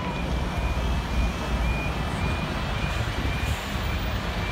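Railway level crossing warning alarm on a manually controlled barrier crossing, sounding a quick, evenly repeating high-pitched tone over a steady low rumble. The barrier-closing sequence has begun.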